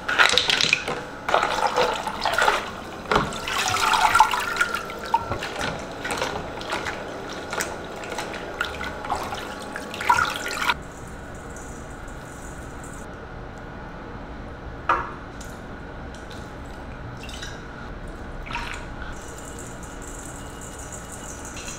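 Water splashing and sloshing around ice cubes and sliced green onion soaking in ice-cold water, irregular for about ten seconds, then settling to a faint steady hiss with a few light clicks.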